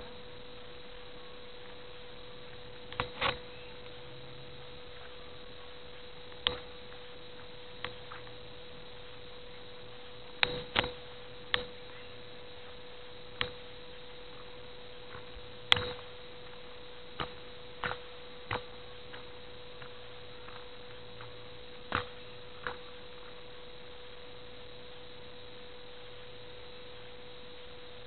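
A steady hum at one pitch, the camera's own electrical noise, with about fifteen short, sharp clicks and knocks scattered through it from the camera being handled as it moves.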